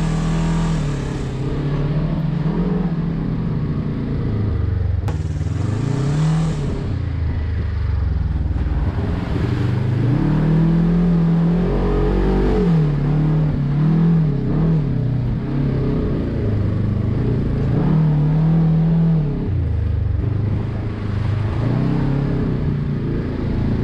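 Off-road side-by-side buggy engine heard from inside its cab, revving up and falling back again and again as it drives over rough sandy ground.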